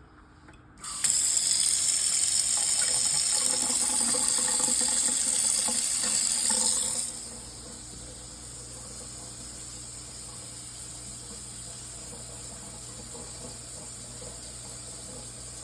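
Water running: a strong gush starts about a second in and lasts about six seconds, then drops to a quieter, steady rush.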